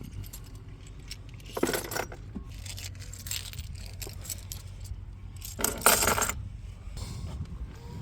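Seashells clinking and rattling against each other as a handful is sorted through, with two louder rattles, one about two seconds in and one about six seconds in.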